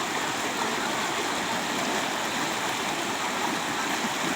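Heavy rain falling with a steady, dense rush of water noise.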